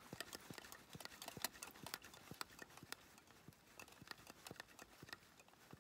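Faint, rhythmic clicking of the hand pump on an MSR Dragonfly white-gas stove's fuel bottle being worked, about two strokes a second, pressurizing the fuel before the stove is primed.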